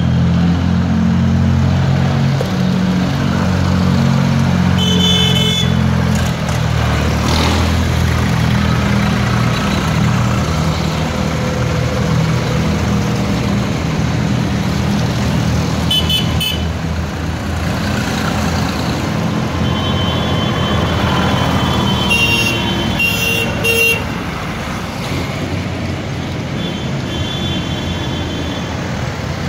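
Diesel farm tractor engines running as a line of tractors drives slowly past, loudest in the first half. Short horn toots sound now and then over the engines, with a cluster of them about two-thirds of the way through.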